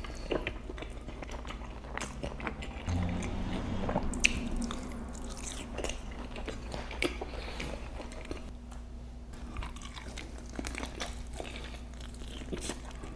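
Close-up chewing and biting of fried chicken wings, with irregular crunches and wet mouth sounds throughout.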